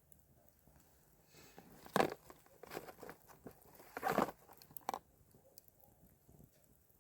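A few crunches, two louder ones about two seconds apart.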